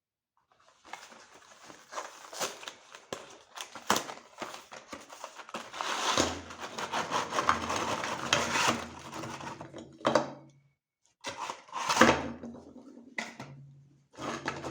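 Meat grinder crushing Oreo cookies: crunching and cracking with sharp clicks. A steady low motor hum joins about halfway through, then stops and starts again in three shorter bursts near the end.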